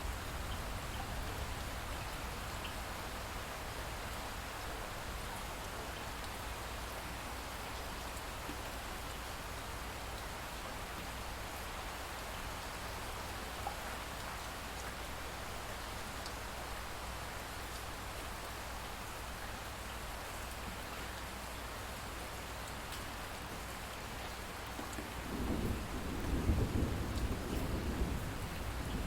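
Steady rain falling, an even hiss. About 25 seconds in, a low roll of thunder rises and becomes the loudest sound.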